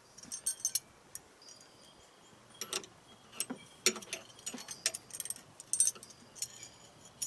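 Small metal hardware clinking and rattling as it is handled: scattered light metallic clicks in short clusters.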